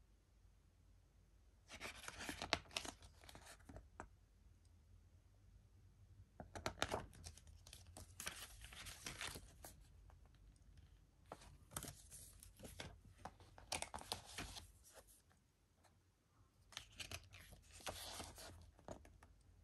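Plastic packaging being torn and crinkled off a DVD box set, in four bursts of crackling with short pauses between them.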